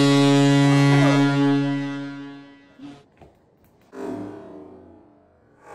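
Hockey goal horn sound effect: one long, steady, deep blast that fades out about two and a half seconds in, marking a goal. About a second and a half later there is a short, quieter, low rumble.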